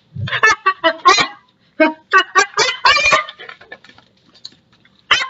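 A person's voice acting out the wind-up to a huge mock sneeze: exaggerated, drawn-out "ah... ah..." cries in two loud bursts.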